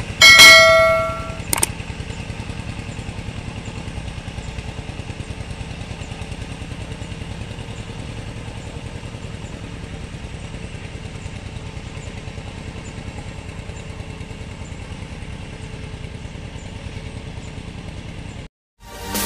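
A click and a bright chiming sound effect in the first second or so, louder than anything else. Then the single-cylinder Yanmar diesel engine of a Quick G1000 two-wheel hand tractor runs steadily, with an even, rapid pulse, and cuts off near the end.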